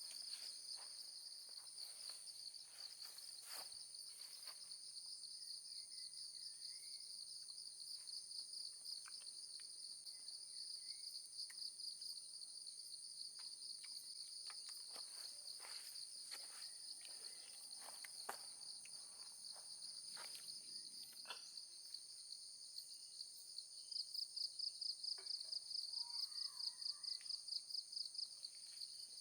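Insects, crickets among them, chirping in a steady, high pulsing trill, which grows louder in rapid pulses near the end. Scattered light clicks sound through it, along with a few faint bird chirps.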